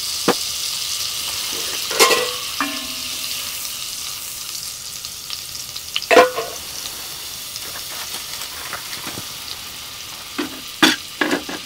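Butter and oil sizzling and foaming in a cast-iron pot on a wood stove, a steady hiss that eases a little as it goes on. A few short knocks come in, the loudest about two seconds in and about six seconds in.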